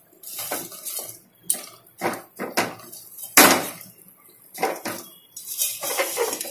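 Perforated metal spoon scraping and knocking against an aluminium kadhai as fried dough pieces are stirred in sugar syrup that is drying to a coating, in irregular strokes, the loudest about three and a half seconds in.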